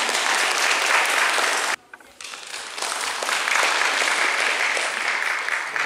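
Audience applauding, cut off abruptly a little under two seconds in, then a second round of applause that builds up and holds.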